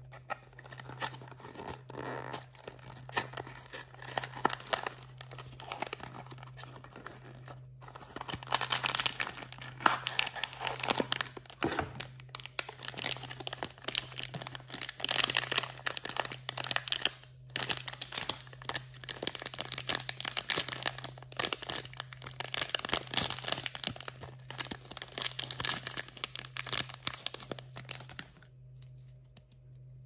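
Toy packaging being opened by hand: cardboard and plastic and foil wrappers tearing and crinkling in a dense run of crackles and rustles. It gets louder about eight seconds in and stops shortly before the end.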